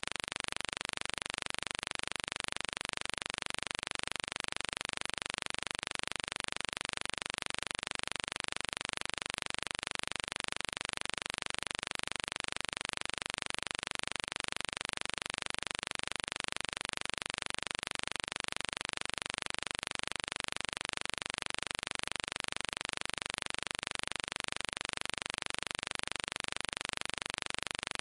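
A steady, unchanging hiss.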